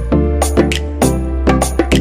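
Background music with a steady beat of percussive hits and pitched instruments.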